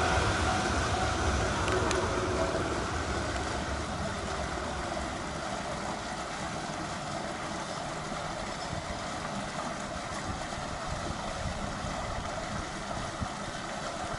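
Keihan Ishiyama Sakamoto Line electric train running away down the track. Its rumble fades over the first several seconds, then gives way to a steady, low background rumble.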